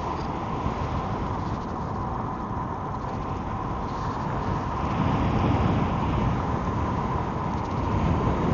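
Wind rumbling on the microphone while riding an Emove Roadster electric scooter, over a steady whine from its motor; the wind rumble swells louder about halfway through.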